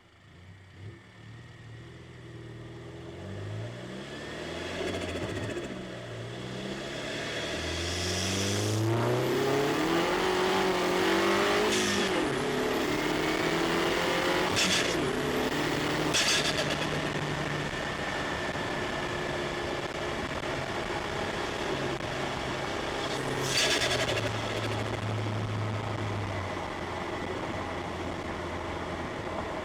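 A turbocharged Mini Cooper's four-cylinder engine, heard from inside the cabin, accelerates hard. Its pitch climbs, drops once at a gear change and climbs again over about ten seconds, then it settles to a steadier run. A few short, sharp sounds cut in along the way.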